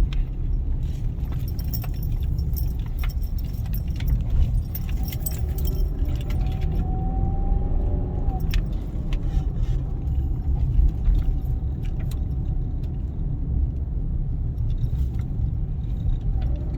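Inside a moving car's cabin: steady low road and engine rumble, with scattered light rattling clicks.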